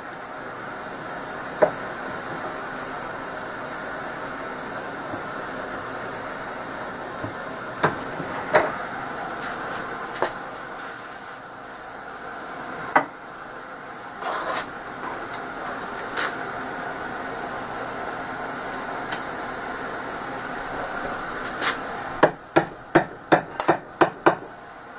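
Propane torch burning with a steady hiss as it heats the end of an aluminum tube, with a few scattered clicks and knocks. Near the end comes a quick run of about eight sharp taps, about three a second.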